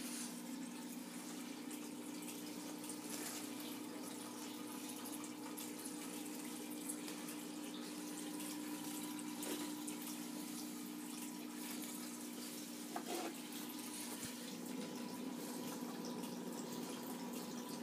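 Small aquarium's internal filter running: a steady trickle and bubbling of water over a low, even hum.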